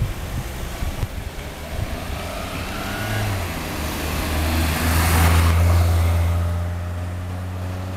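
Road traffic passing close by: a car's engine hum and tyre noise swell to a peak about five seconds in and then fade, with a steady low engine hum carrying on afterwards.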